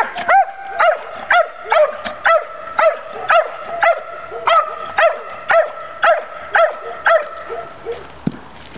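A Belgian Malinois barking steadily at a protection helper in a hold-and-bark exercise, about two sharp barks a second. The barking stops near the end.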